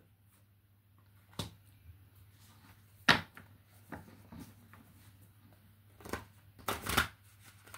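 A deck of tarot cards being shuffled by hand: scattered separate taps and flicks of the cards, the loudest about three seconds in, then a short run of quick card flicks near the end.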